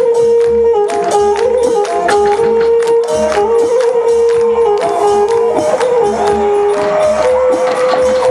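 Traditional Thai music, loud and steady: a sustained wind melody stepping between notes over a regular drum beat, with many small cymbal or jingle strikes.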